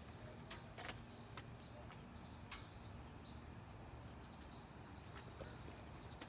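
Faint outdoor ambience: a steady low rumble with a few sharp clicks and faint high bird chirps.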